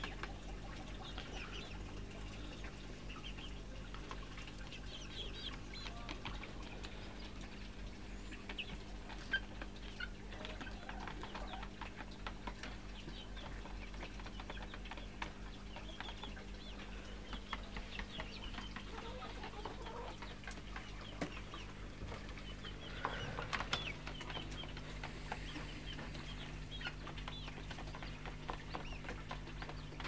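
Domestic hens clucking softly and intermittently, short scattered calls with small clicks in between, and a brief louder stretch about two-thirds of the way through.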